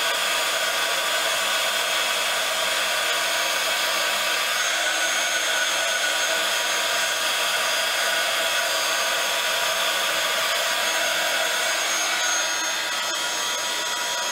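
Handheld embossing heat gun running steadily, a rush of blown air with a steady whine, as it melts heat-embossing powder on card stock. It cuts off at the very end.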